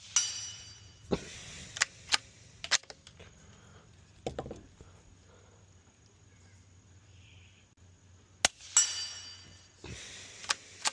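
Ruger American .22 LR bolt-action rifle firing two quiet shots, one at the start and one about eight and a half seconds in. Each shot is followed by a short metallic ringing, and sharp clicks and clacks of handling and bolt work come in between.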